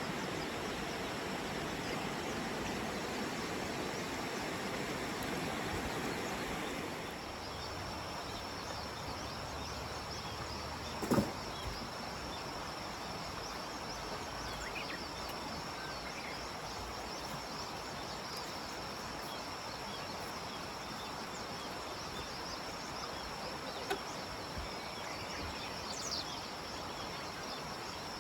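Outdoor summer ambience: a steady hiss of background noise, with a thin, steady, high insect trill that comes in about seven seconds in. A single sharp knock sounds about eleven seconds in, with a couple of faint ticks later.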